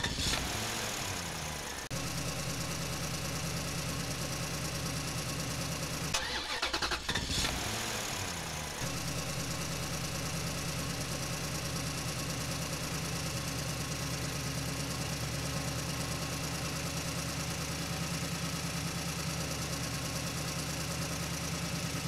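Tractor diesel engine idling steadily, a low even chug. Twice, near the start and again about six to eight seconds in, the note briefly glides up and down.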